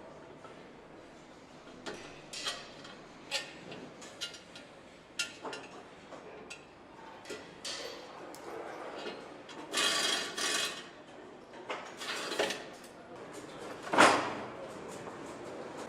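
Irregular metallic clinks, knocks and rattles of tools and metal parts being handled during hand assembly of an engine, with a loud single knock near the end.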